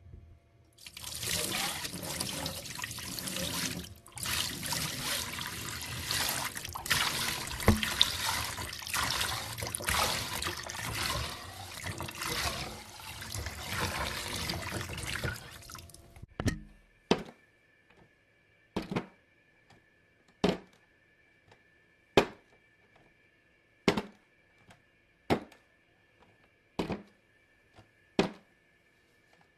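Water running or pouring for about fifteen seconds, then stopping; after it come single sharp knocks about every one and a half seconds over a faint steady high hum.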